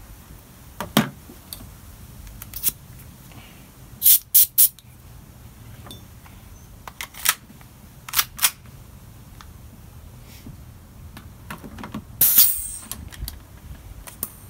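Sharp plastic-and-metal clicks and clacks of a KWA USP airsoft gas-blowback pistol being handled: magazine worked, slide pulled back and let go, including a quick run of three clicks and later a pair. Near the end, a short, loud burst with a hiss.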